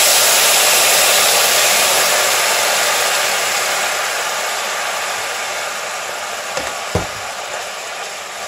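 Coconut cream sizzling with a steady hiss as it is poured into a hot ceramic-coated frying pan, the hiss slowly fading as it cooks down to split its oil. A couple of short knocks from the spatula against the pan about two-thirds of the way through.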